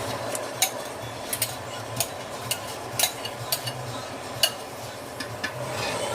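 A spoon stirring a pot of tomato stew, knocking against the pot in sharp irregular clicks about every half second, over a low steady hum.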